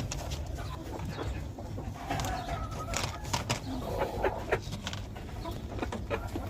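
Hens clucking in a poultry house, with short calls now and then amid scattered clicks and rustling.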